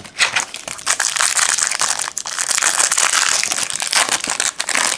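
A foil trading-card pack wrapper crinkling steadily in the hands as the pack is opened.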